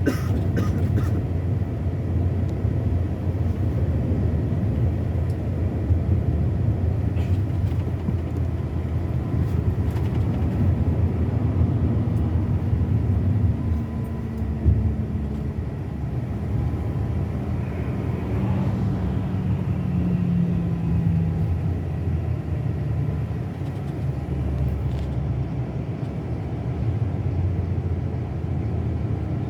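Scania K 360 coach's diesel engine running on the road, a steady low rumble whose engine note shifts up and down in pitch around the middle.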